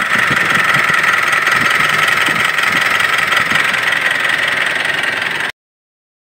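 Mitsubishi Pajero Sport's 2.4-litre DI-D four-cylinder turbodiesel running steadily with diesel clatter, heard close up in the open engine bay. The sound cuts off suddenly about five and a half seconds in.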